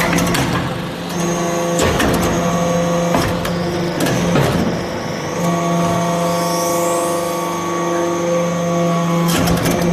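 XB630 metal-chip briquetting press running: a steady hydraulic pump hum that dips briefly twice, with about five sharp metallic clanks from the press.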